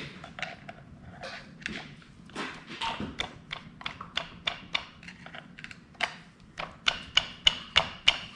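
A ratchet wrench clicking as the clutch nut of a Honda CB900C is run down its shaft. The clicks come irregularly at first, then settle into a steady run of about three a second with a metallic ring near the end. The nut turns on freely, which the mechanics take to mean it is not cross-threaded.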